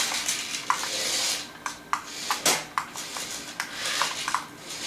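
Adventure Force mini RC truck's small electric motor and gears whirring in short spurts, with scattered clicks and knocks.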